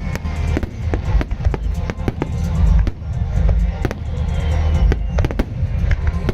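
Starmine fireworks barrage: a dense, irregular run of aerial shell bursts and crackling bangs over a continuous deep rumble. A rock song plays along with it.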